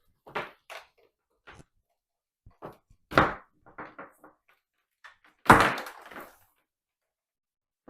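Hard plastic knocks and clicks as the power cord is handled and clipped onto the upright vacuum's body. There are scattered light clicks and two louder thunks, about three seconds in and again about five and a half seconds in.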